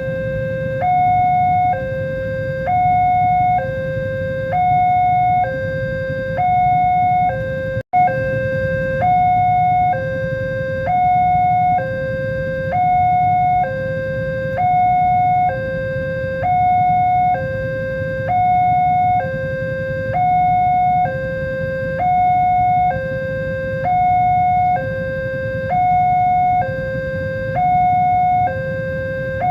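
Railway level-crossing warning alarm: an electronic two-tone signal alternating between a lower and a higher tone about once a second, repeating steadily, the signal that a train is approaching and the barriers are down. It cuts out for an instant about eight seconds in.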